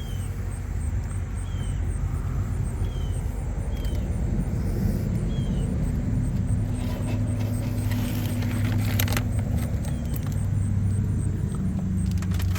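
A steady low engine hum of an idling vehicle.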